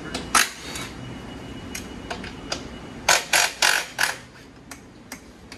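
Metal clanks and knocks from dirt bike parts being handled during a teardown: one sharp knock about half a second in, then a quick run of four clanks about three seconds in.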